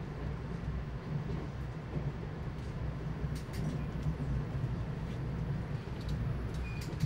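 Car driving through a road tunnel, heard from inside the cabin: a steady low road rumble, with a few faint clicks.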